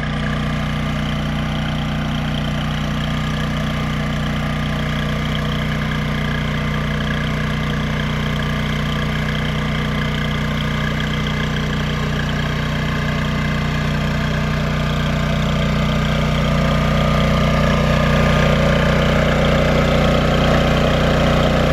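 Cummins Onan QG2500i LPG inverter generator running with a steady low hum.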